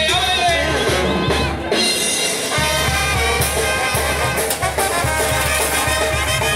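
Brass band music playing, with held notes over a steady bass that drops out briefly about two seconds in.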